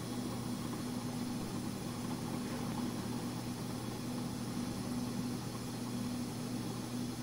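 Steady low electrical-sounding hum with an even hiss underneath, unchanging throughout, with no distinct handling sounds standing out.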